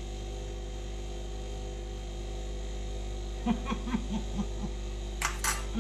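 Steady low mains hum. About three and a half seconds in, a woman makes a quick string of short closed-mouth 'mm' sounds while chewing food, and two sharp clicks follow near the end.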